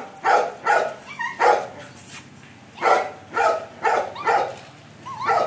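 A dog barking repeatedly in short barks: three in the first second and a half, a pause, then four in quick succession and one more near the end.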